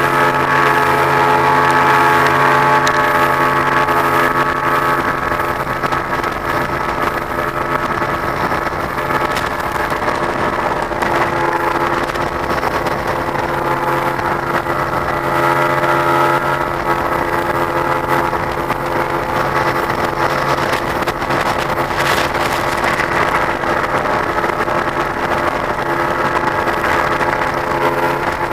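Fishing boat's engine running steadily at speed, heard from inside the boat: an even, droning hum with a rushing hiss over it.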